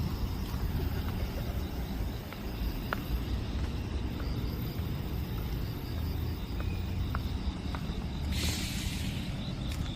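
Insects chirping in even, rapid pulses over a steady low rumble, with a brief hissing rustle about eight and a half seconds in.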